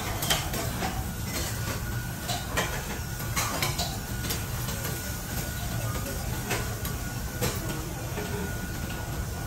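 Metal spatula clacking and scraping on a steel teppanyaki griddle, irregular clinks over a steady low background rumble.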